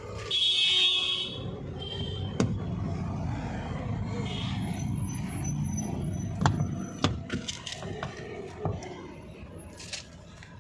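A loud, high electronic beep lasting about a second, with a shorter one about two seconds in, followed by scattered sharp clicks and knocks over a steady low rumble.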